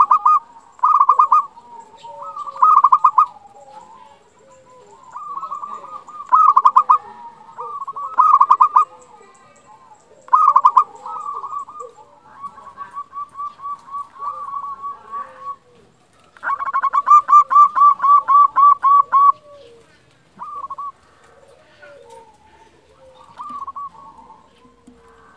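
Local-strain zebra dove (perkutut lokal) singing: short bursts of rapid, trilling coo notes, repeated every second or two, with one longer run of about three seconds two-thirds of the way in. Fainter, lower bird notes fill the gaps.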